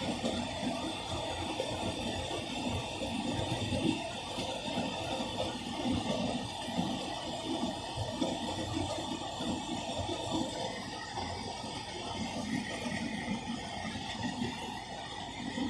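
Hotpoint Ultima S-line tumble dryer running its distribution cycle with a full load: a steady whooshing drum hum with an uneven low rumble from the turning drum.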